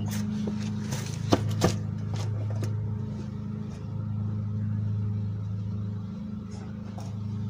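Steady low hum that swells and fades slightly, with two sharp clicks a little over a second in.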